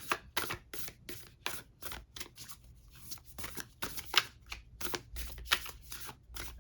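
Oracle card deck being shuffled by hand: a quick, irregular run of card slaps and flicks, about three or four a second.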